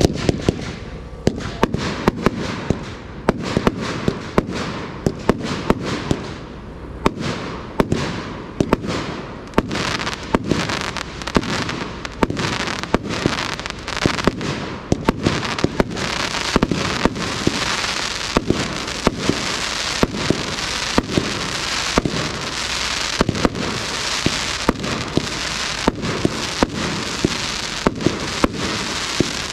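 RKM 200-shot compound firework cake firing: a long run of sharp shots, about one to two a second, over an even hiss that grows denser and louder in the second half.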